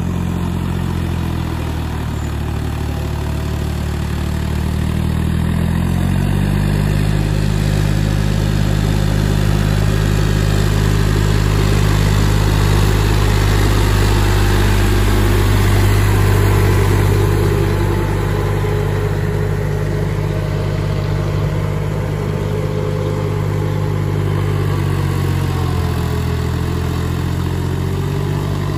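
Farmtrac 6050C 4WD tractor's diesel engine running steadily under load, driving a rotary tiller through flooded paddy mud. The engine pitch rises a few seconds in and dips briefly near the end.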